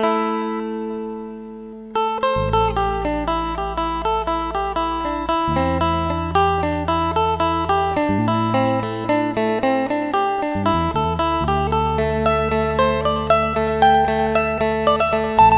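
Isan phin (plucked lute) music. A chord rings out at the start, then from about two seconds in a fast, busy run of plucked notes plays over a steady drone, with a low held bass underneath that changes note every few seconds.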